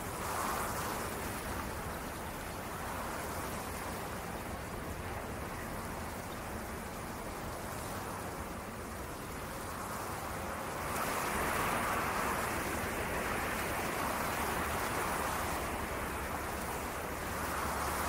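Steady rushing noise, even and without any tone, getting louder about eleven seconds in.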